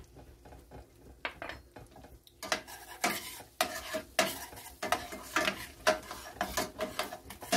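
Metal whisk stirring flour into melted butter in a stainless steel sauté pan, the start of a roux: after a few light clicks, quick repeated scraping and clinking strokes against the pan begin about two and a half seconds in, with the pan ringing faintly and the butter sizzling under it.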